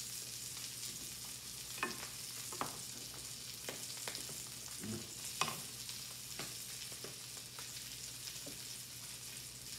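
Salmon fillets frying skin-side down in brown butter in a stainless steel skillet: a steady sizzle with scattered small pops and clicks.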